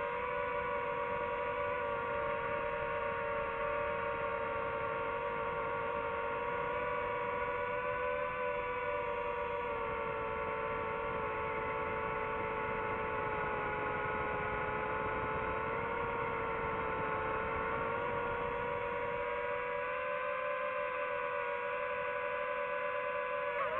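DJI FPV drone's motors and propellers whining steadily, the pitch drifting slowly up and down with throttle and jumping up right at the end.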